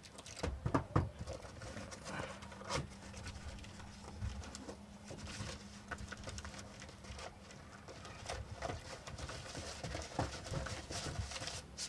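Irregular light taps and clicks, with a faint steady hum from about two seconds in until about eight seconds in.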